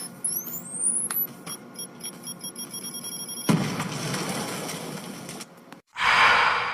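Edit sound effects played back to back: high rising whistle-like glides over steady tones, then a sudden noisy burst about three and a half seconds in that tails off, and near the end a loud rushing swell that starts to fade.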